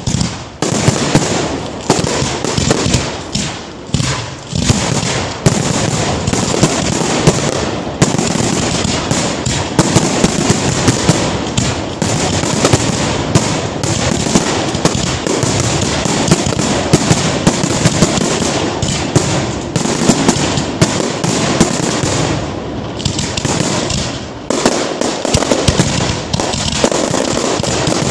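Fireworks display: a continuous barrage of aerial shell bursts with many sharp bangs over steady crackling. The barrage eases briefly about two-thirds through, then builds again.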